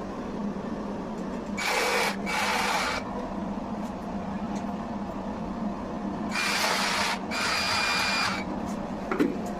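Electric drill running in two bursts of one to two seconds each, a few seconds apart, with a thin whine over the motor noise.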